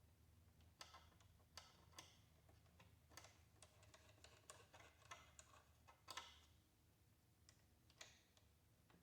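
Faint, irregular small clicks and ticks of metal parts being handled: nuts being put on and threaded by hand onto a motorcycle rear-view mirror's mounting studs.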